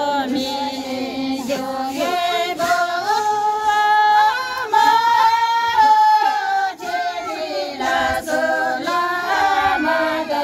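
A group of women singing a song together without instruments, their voices holding and stepping through a single melody.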